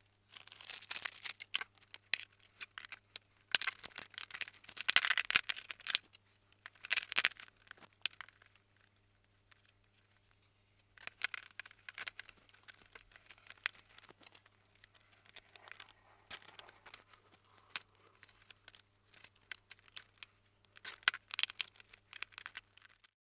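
Hands handling plastic wiring cable and a connector inside an outboard motor's engine compartment: bursts of crinkling, rustling and clicking of plastic, with a pause around the middle.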